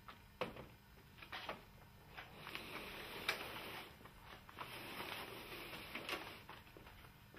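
Metal window hardware being handled on a uPVC tilt-turn sash: a few sharp clicks, then several seconds of sliding, rubbing metal-on-plastic noise with small clicks in it.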